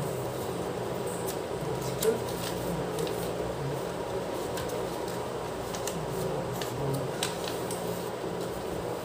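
A square of origami paper rustling and crinkling as it is folded and creased by hand, in scattered short sharp crackles, the loudest about two seconds in, over a steady background hum.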